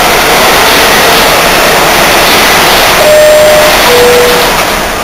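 R68A subway car's two-tone door chime, a higher note and then a lower one about three seconds in, signalling that the doors are about to close. It sounds over loud, steady rumble and hiss of train and station noise.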